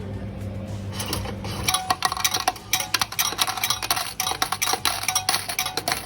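Vending machine mechanism at work: a low motor hum for about the first second and a half, then rapid, irregular metallic clicking and clattering.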